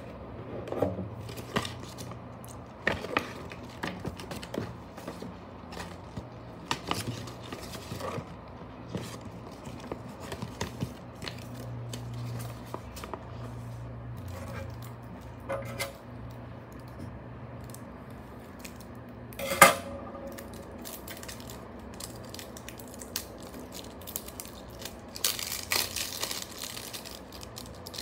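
Paper rulebook and cardboard game box handled on a table: rustling pages with scattered light taps and knocks, and one sharp knock about two-thirds of the way through. Near the end, the plastic wrap on a deck of cards crinkles.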